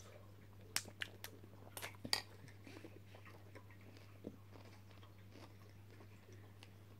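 Close-up chewing of a mouthful of cornflakes: a quick run of sharp crunches in the first couple of seconds, then softer, sparser chewing, over a faint steady low hum.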